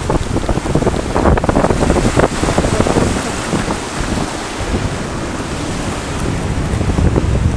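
Rough sea surging and breaking over rocks, with wind buffeting the microphone.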